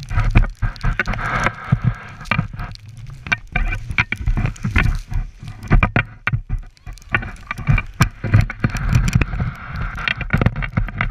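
Wind buffeting the microphone of a camera carried by a skier moving downhill, with the skis hissing and scraping over snow and frequent sharp knocks.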